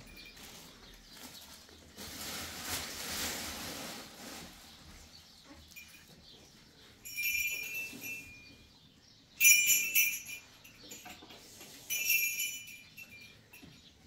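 A rustling noise, then three sudden metallic rings a couple of seconds apart, each fading over about a second; the middle one is the loudest.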